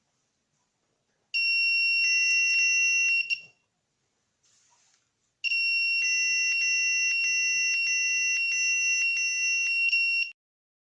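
Electronic smoke-alarm tone from a homemade smoke-detector gadget, sounding when smoke is detected. It comes in two bursts: a steady high tone of about two seconds, then after a short gap a longer one of about five seconds that cuts off suddenly.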